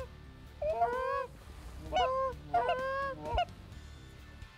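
Canada goose honking: three quick bursts of loud honks, each a short note that bends in pitch, over a low steady rumble.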